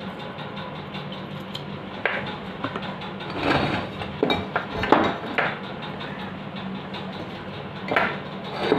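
Metal fan-motor end covers, a bearing puller and a removed ball bearing being handled and set down on a table: scattered metallic knocks and clinks, a cluster of them around the middle and a few more near the end.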